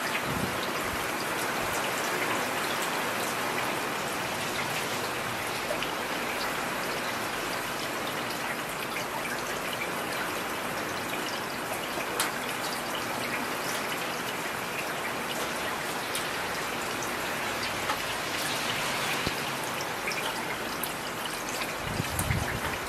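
Steady rain falling: an even hiss with scattered drop ticks, and a brief low rumble near the end.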